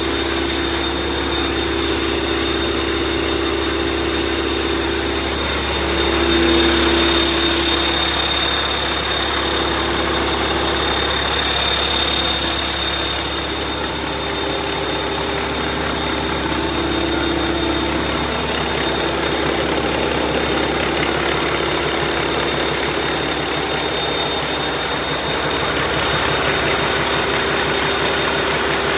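YaMZ-650 six-cylinder turbodiesel running on a test bench after an overhaul, mostly at a steady idle, with a thin high whine over it. It picks up a little about six seconds in and again around twelve seconds, then settles back.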